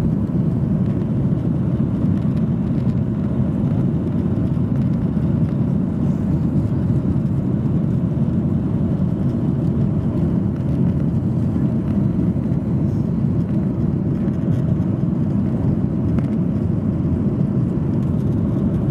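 Steady low rumble of a Boeing 737-800's twin CFM56 turbofan engines and airflow heard from inside the passenger cabin, even and unchanging throughout.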